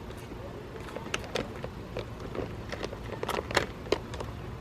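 A bag of birdseed being tugged and worked at to get it open: scattered short crinkles and clicks of the bag, bunched together about three seconds in, over a low steady hum.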